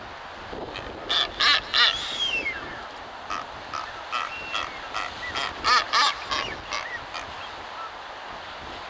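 Blue-footed boobies calling in a courtship display: two bouts of short, repeated calls, one about a second in and another around five to six seconds in, with a whistle that slides down in pitch.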